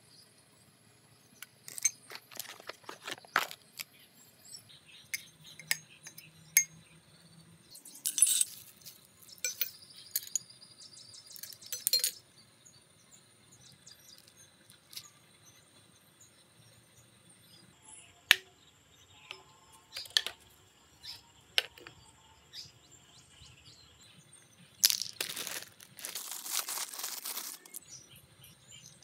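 Scattered clinks and knocks of metal and plastic bicycle parts being handled and put down on a stone tile floor, with a rougher noise lasting a couple of seconds near the end.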